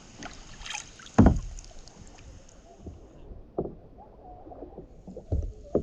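Kayak paddling on a river: paddle strokes with a few sharp knocks, the loudest about a second in and two more near the end.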